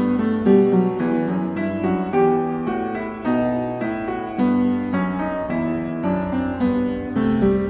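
Background piano music: a gentle melody of single notes struck one after another, about two a second.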